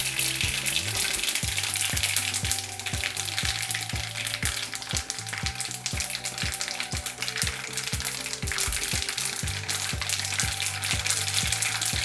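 Whole mustard seeds and crushed flaxseed sizzling and frying in smoking-hot oil in a non-stick frying pan, stirred with a silicone spatula. The sizzle is steady.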